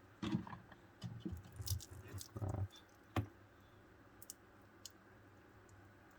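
Small clicks and brief rubbing of watch parts and tools being handled during assembly, busiest in the first half, with one sharp click about three seconds in and then only a few faint ticks.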